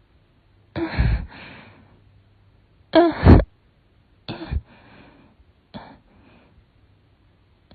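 A person sneezing over and over in an allergy fit: four sneezes about a second and a half apart, the second one the loudest.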